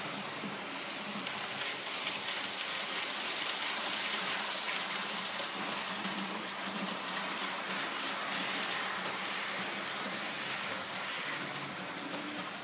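Model train running on the track: an even rolling hiss of wheels on rails with a faint motor hum. It swells as the train passes close by in the middle and eases off near the end.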